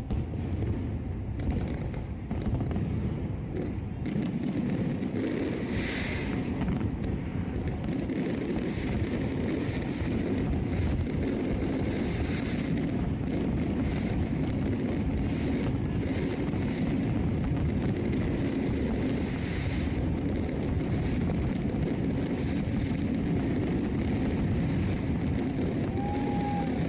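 Fireworks going off continuously: many bangs and crackles over a steady low rumble.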